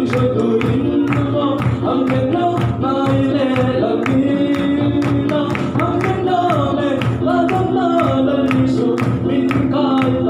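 Lively worship song: voices singing a melody over a steady, regular drum beat.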